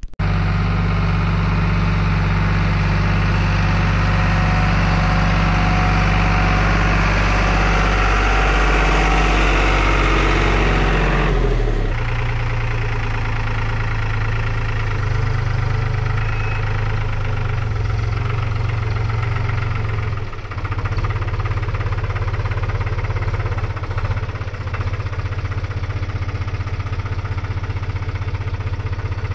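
Compact tractor's diesel engine running steadily while it carries a stack of boards on its loader forks; the engine note shifts about twelve seconds in.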